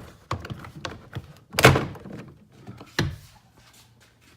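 Interior door trim panel being tugged against its retaining clips, with several hollow plastic thunks and knocks. The loudest comes about a second and a half in and another about three seconds in.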